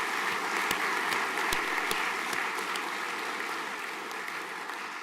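An audience applauding, a dense steady clapping that slowly dies away near the end.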